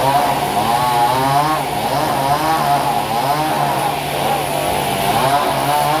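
Sawmill saw cutting through a board: a steady machine hum under a whine whose pitch rises and falls over and over.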